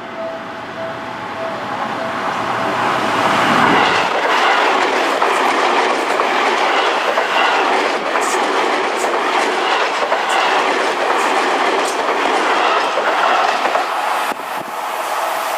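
Seibu 6000 series electric commuter train running past at a level crossing. Its wheel and rail noise swells to loud about three to four seconds in and holds, with sharp clacks of wheels over rail joints. The crossing's warning bell rings in a pulsing tone at the start and is drowned out once the train is alongside.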